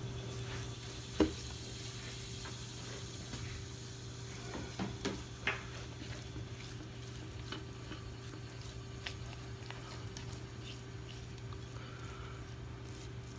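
Hands rubbing dry seasoning into raw chicken skin on a metal sheet pan, a soft quiet handling sound, with a sharp click about a second in and a few lighter clicks around five seconds. A steady low hum runs underneath.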